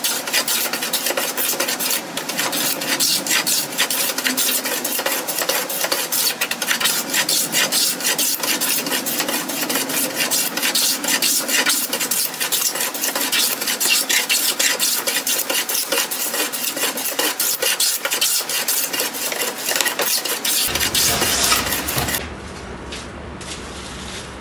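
No. 7 jointer hand plane scraping shavings off a wooden board in a rapid run of strokes, taking down high spots to flatten out a twist. About 22 seconds in it stops and only a quieter steady background is left.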